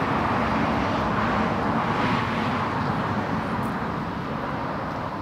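Steady rushing drone of a passing vehicle, fading slowly toward the end.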